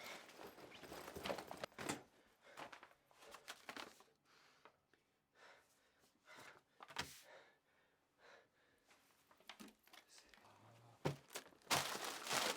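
Faint, scattered knocks, thuds and rustling, with long quiet gaps between them and a louder burst of noise near the end.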